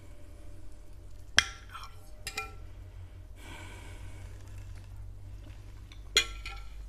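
A spoon clinking against a ceramic bowl of dumplings in broth, three short clinks: about a second and a half in, again near two and a half seconds, and once more near the end. Between them there is a soft, quiet eating noise.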